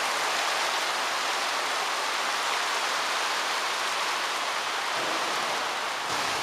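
Heavy rain pouring down in a thunderstorm downpour, a steady hiss that does not let up.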